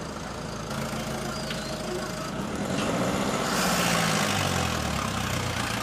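A motor vehicle's engine running and passing close by, getting louder towards the middle with a rush of tyre hiss, then its pitch dropping as it moves away.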